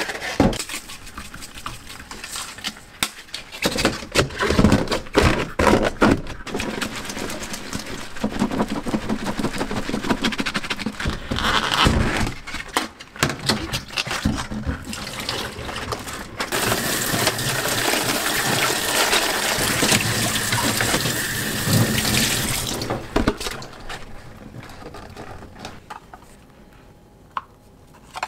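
Dishwashing in a stainless steel sink: rubber-gloved hands handling and scrubbing a plastic takeout container, with irregular clatter and splashing. About halfway through, the tap runs steadily for about six seconds, then stops.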